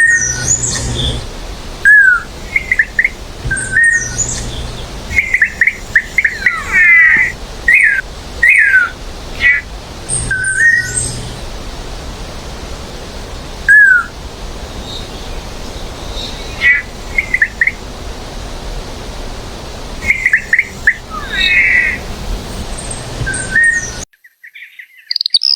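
A songbird singing: short whistled chirps and sliding notes, with some quick jumbled phrases, over a steady background hiss. The recording cuts off abruptly near the end.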